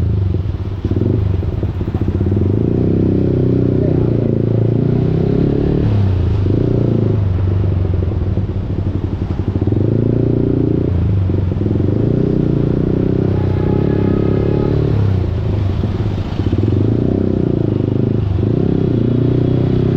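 Yamaha R15 V4's single-cylinder engine through an aftermarket Akrapovic full-system exhaust, running under way, its pitch rising and falling over and over with throttle and gear changes.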